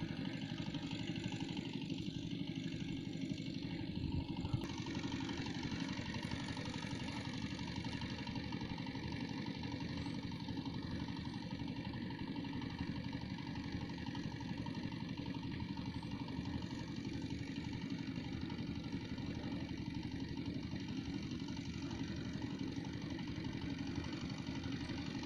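A motor running steadily at an even speed, with no change in pace.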